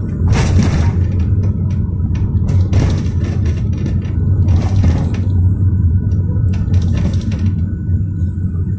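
Steady low rumble of a GAZelle Next minibus on the move, heard from inside the cabin: its Evotech 2755A engine, running on liquefied petroleum gas, together with road noise, with a few brief rushes of noise on top.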